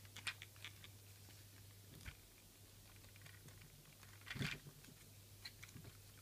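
Faint clicks and light rattles of the plastic and die-cast parts of a Masterpiece Optimus Prime transforming toy being moved by hand. There is a louder clatter about four and a half seconds in, over a low steady hum.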